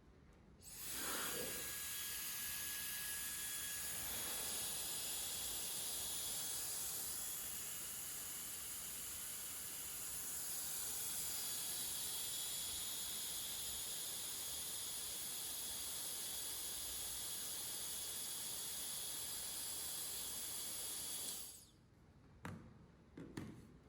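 High-speed hair dryer blowing cold air: a steady rush of air with a thin, high-pitched motor whine over it. It starts about a second in and shuts off about two seconds before the end, followed by a few small knocks.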